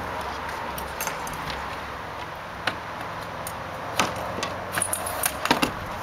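Metal leeboard shaft being worked into its socket on the sail rig's front crossbar, where a spring button holds it: scattered sharp metal clicks and knocks, bunching together in the last second or two.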